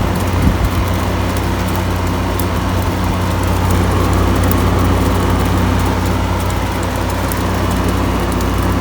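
Window air-conditioning units running outside, their compressors and fans giving a loud, steady hum with a few fixed low tones.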